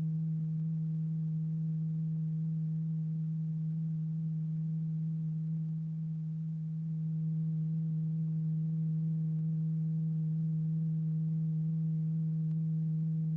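Steady low pure tone, one unchanging pitch with faint overtones, the note that vibrates a stretched-paper diaphragm strewn with lycopodium powder. It dips slightly in loudness about six seconds in.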